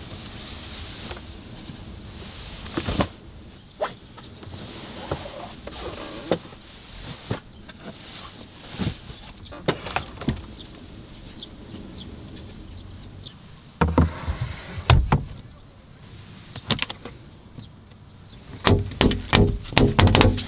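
Scattered clicks and knocks of things being handled, with a couple of heavier thumps about two-thirds of the way through; music comes in near the end.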